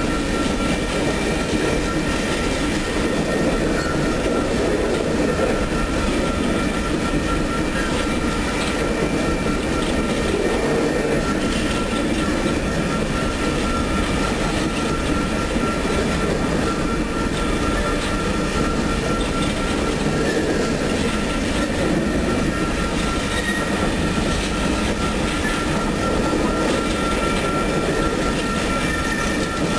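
Empty coal train's open-top coal cars rolling past at speed: a steady rumble and rattle of steel wheels on rail, with a thin high squeal from the wheels held throughout.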